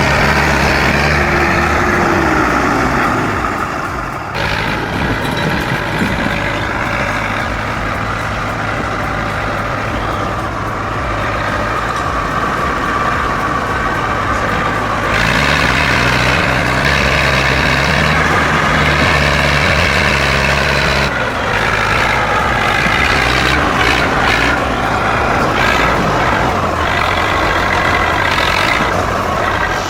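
IMT 558 tractor's diesel engine running steadily under load while hauling a load of logs. The engine shifts slightly in tone a few times.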